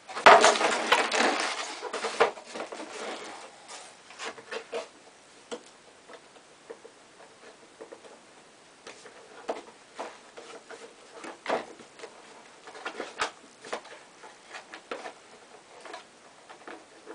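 A small cardboard box being opened by hand. There is a loud rustle of cardboard and packaging for about the first two seconds, then scattered scratches, taps and small clicks as the flaps and contents are picked at.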